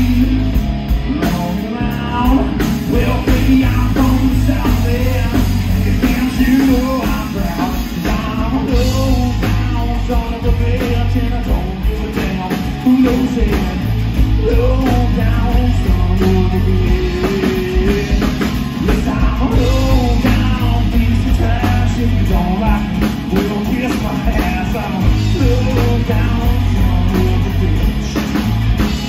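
Live rock band: a man singing lead over acoustic guitar, electric bass and drum kit, played loud through the PA.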